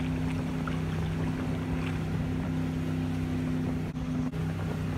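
Motorboat engine droning steadily at speed, over the rush of the churning wake and wind on the microphone. The sound dips briefly about four seconds in.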